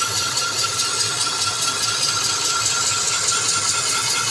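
A motor or engine running steadily, with a rattle.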